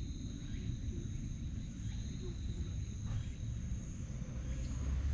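Outdoor ambience: a steady high-pitched trilling of insects such as crickets, over a low rumble.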